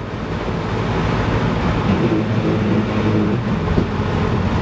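Inside the cabin of a UAZ Hunter at highway speed, coasting: a steady rumble from the drivetrain. The owner takes this rumble as the sign of a failing rear driveshaft, with much play in its splines.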